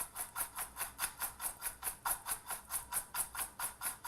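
Crushed dry ramen noodles with slivered almonds and sesame seeds being tossed with oil in a bowl: a rhythmic, crisp rustle of about six strokes a second.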